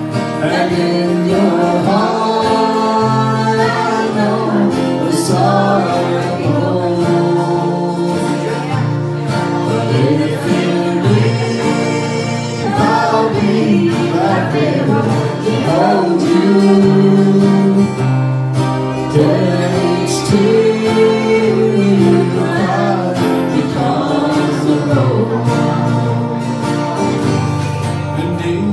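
Live acoustic band: a woman singing lead into a microphone over two strummed acoustic guitars and a mandolin, one continuous song with no pause.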